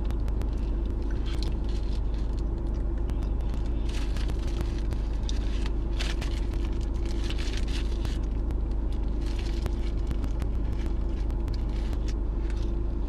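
Steady low hum of a car heard inside its cabin, with scattered small clicks and crinkles as a napkin-wrapped brownie is eaten.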